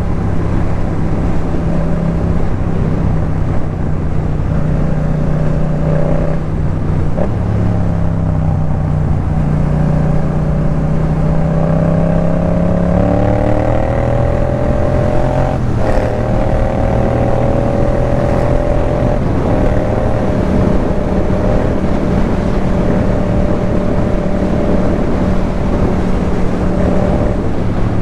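Yamaha MT-07's parallel-twin engine breathing through a Jeskap K4 full exhaust system, heard from the bike while riding. It runs steadily, climbs in pitch as the bike accelerates about halfway through, then holds a steady cruising note.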